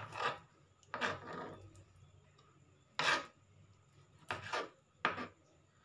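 Kitchen knife slicing boiled chicken offal and immature eggs on a plastic cutting board: about six separate cuts at an irregular pace, each a short scrape as the blade goes through and meets the board.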